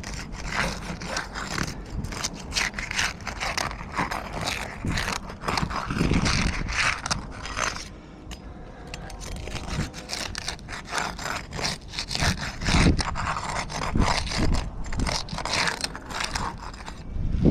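A roof snake, a flat metal shingle-removal bar, scraping and prying under asphalt shingles to loosen them and their nails, in quick, irregular scraping strokes.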